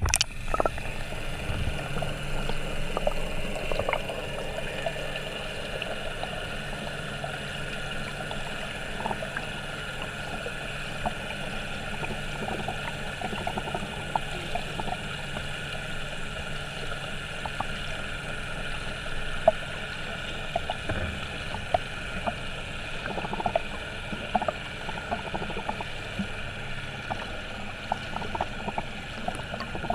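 Underwater pool sound through a submerged camera: a steady, muffled hum and hiss with faint scattered clicks and sloshes from a freestyle swimmer's strokes. A sharp splash right at the start as the camera goes under.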